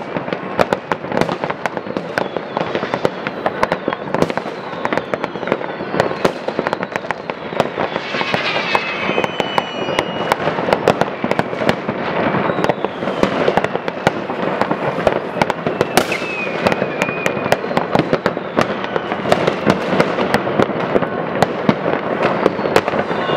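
Fireworks set off all over a town at once: an unbroken crackle of firecrackers and rocket bangs, near and far. Whistling fireworks shriek over it about a third of the way in, again past the middle, and near the end.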